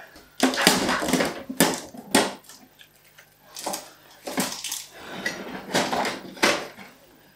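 Packing tape being peeled off a plastic HP Deskjet 2720 inkjet printer and the printer's plastic front parts being handled: a run of short rips and rustles broken by sharp plastic clicks and knocks.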